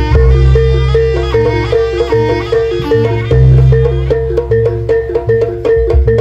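Javanese gamelan music amplified through loudspeakers: metallophones play a fast, busy melody, one high note repeating steadily, over deep drum and gong strokes.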